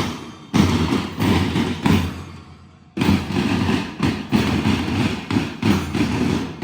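School marching band drums beating a rhythmic cadence of dense, repeated strokes. The beating thins and fades to a short quiet gap, then starts again sharply about three seconds in.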